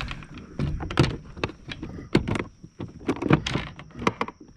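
Handling noise while a small fish held in plastic lip grips is unhooked over a plastic kayak deck: a run of irregular clicks and knocks.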